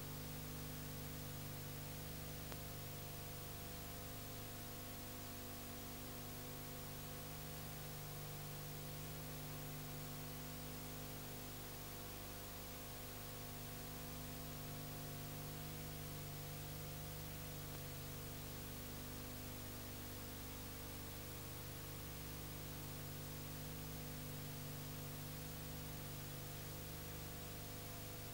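Steady electrical hum, several fixed tones at once, under an even hiss: the background noise of a silent film's transfer, with no recorded sound of the scene.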